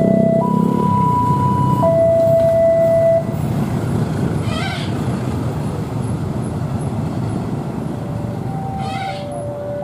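Level-crossing warning alarm sounding a steady hi-lo two-tone, switching between a higher and a lower tone about every second and a half, and stopping about three seconds in. Under it, the rumble of the receding passenger train's wheels on the rails drops at the same moment and carries on lower. A second, lower-pitched two-tone alarm starts near the end.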